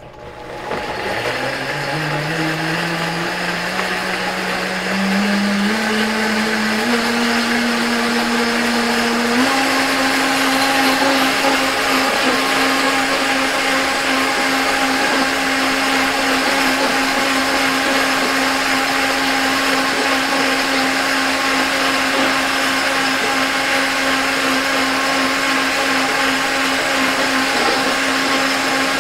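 Countertop blender puréeing mint and coriander leaves with water, green chili, ginger and tamarind. Its motor steps up in speed several times over the first ten seconds, then runs steadily at high speed.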